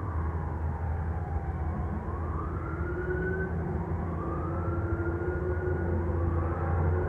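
Emergency vehicle sirens wailing, several overlapping slow rising and falling sweeps, over a steady low hum.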